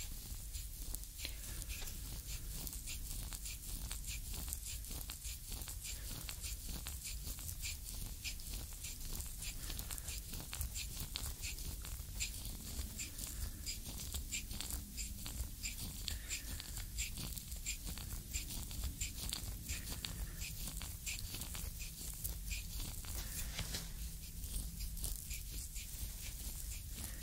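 Wooden reflexology stick pressed and worked back and forth over the sole of a bare foot, skin rubbing against the wood in a continuous stream of fine crackles and small squeaks.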